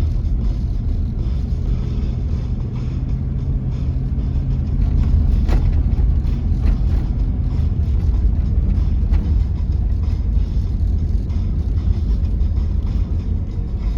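A motor vehicle running: a steady low rumble with a faint engine hum that fades about five seconds in, and a few sharp knocks.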